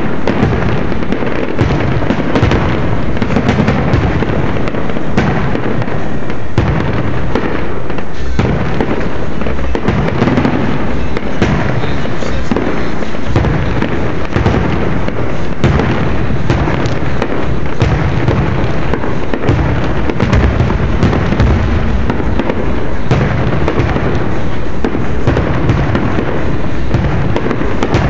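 Aerial firework shells bursting in a dense, nearly continuous barrage, booms and crackling reports overlapping one after another.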